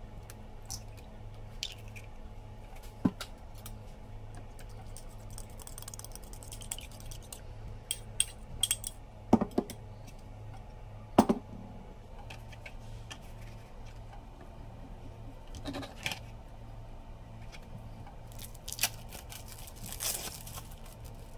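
Scattered taps, clicks and knocks of hands preparing food on a plastic cutting board, working with egg and bowl and handling tortillas, with a few light rustles. The loudest knocks come about eight to eleven seconds in, over a low steady hum.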